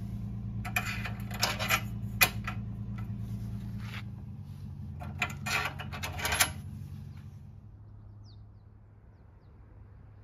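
Steel carriage bolts clicking and rattling against a steel bed-rail frame as they are handled and fitted into drilled holes, in two clusters of short metallic clicks. A steady low hum runs underneath and fades away in the second half.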